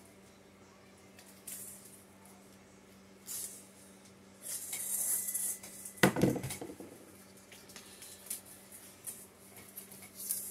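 A package being unpacked by hand: short bursts of rustling and scraping packaging, and one sharp knock about six seconds in. A steady low hum runs underneath.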